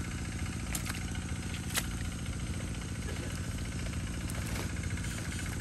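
Small engine running steadily, the motor of a water pump draining the fishpond. Two sharp clicks sound about one and two seconds in.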